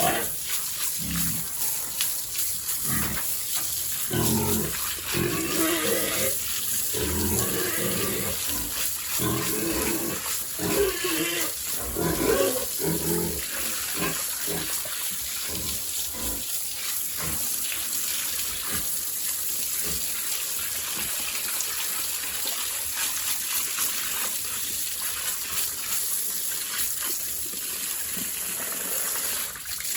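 Pigs grunting and squealing over a steady rush of running water; the pig calls thin out about halfway through while the water runs on.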